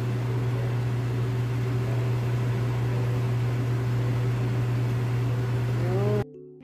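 Kitchen fan running with a steady low hum and an even rush of air; it cuts off abruptly about six seconds in as music begins.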